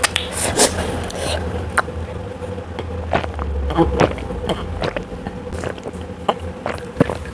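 Close-miked eating sounds: chewing with wet mouth smacks and scattered sharp clicks, over a steady low hum.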